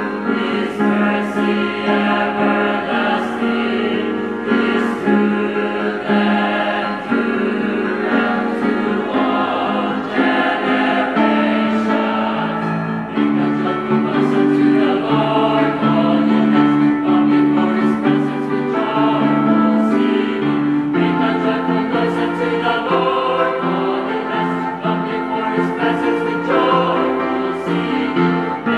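A mixed choir of women's and men's voices singing in harmony, holding sustained chords that shift from one to the next.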